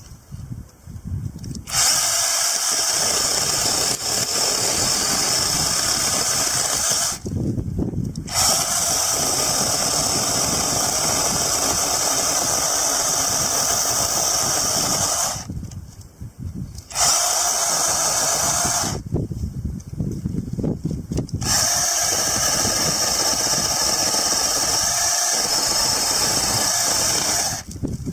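DEHANTOOLS brushless battery chainsaw running and cutting through stump wood in four runs, stopping briefly between cuts. Its motor and chain give a high-pitched whine that drops away quickly each time the trigger is released.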